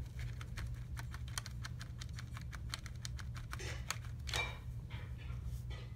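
Quick run of light clicks and taps, several a second, as a paintbrush works the red pan of a plastic watercolor palette, then a few scattered louder taps and a brief scrape.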